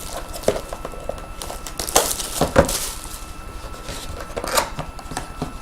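Trading cards and pack wrappers being handled: rustling and crinkling with small clicks, loudest a couple of seconds in and again near the end.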